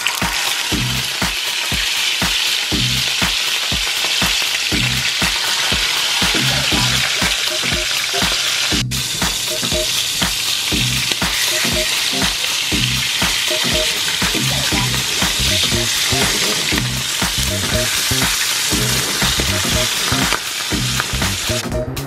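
Whole mackerel shallow-frying in hot oil in a frying pan: a steady, loud sizzle and crackle of the oil. Background music with a steady beat plays underneath.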